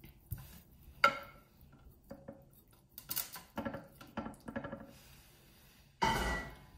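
A knife clinks, taps and scrapes against a glass Pyrex baking dish as cooked sweet potato rounds are pushed and cut into place. There is a sharp clink about a second in and a run of small clinks and knocks in the middle. A louder scraping clatter comes near the end.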